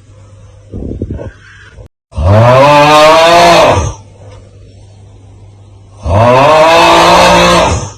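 The looped 'Aauuggh' TikTok meme sound: a man's loud, strained snoring groan, heard twice about four seconds apart, each lasting under two seconds, with a rising then falling pitch. Between the groans comes a quieter, briefer breath sound.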